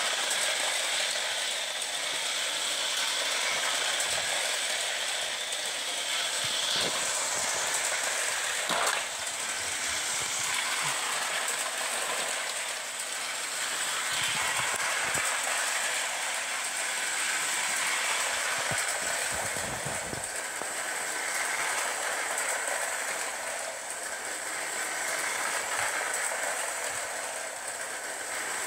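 Lionel O gauge model freight train running round the track: the steady whir and clatter of the locomotive's motor and wheels on the metal rails, with a few sharp clicks.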